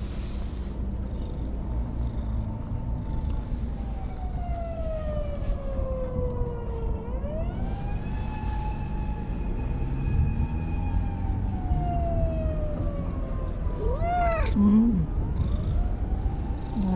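Domestic cat purring with a steady low rumble while being stroked, and giving one short meow about fourteen seconds in. A siren wails behind it, its pitch sliding slowly down, back up and down again.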